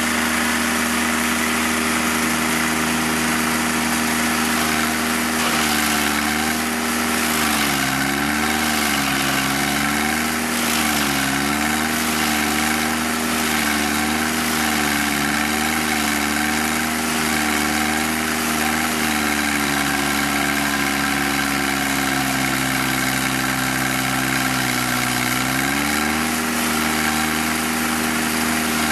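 D52SPH stump grinder's engine running steadily. Its pitch dips several times, then sits lower for several seconds before rising back.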